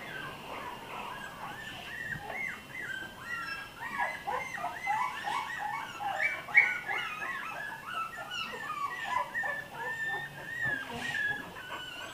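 Several American Bully puppies whining, with many short high-pitched cries overlapping one another; the cries are loudest a little past the middle.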